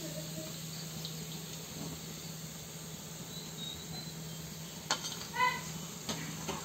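Hot oil sizzling steadily in a kadai as deep-fried chicken 65 pieces are lifted out with a perforated steel skimmer. About five seconds in there is a sharp click, then a brief high-pitched sound.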